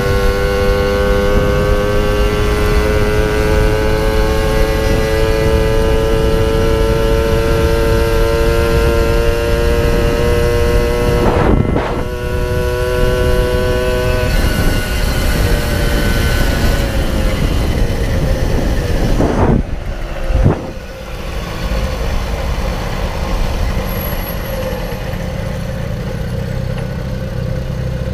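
Puch Maxi Luxe moped's 50cc two-stroke engine, running through a Puch Radical sidebleed expansion pipe, pulling under throttle with its note slowly rising in pitch for about twelve seconds. Around fourteen seconds in the engine note falls away and the moped coasts, leaving mostly wind noise, and near the end a low idle is heard as it slows to a stop.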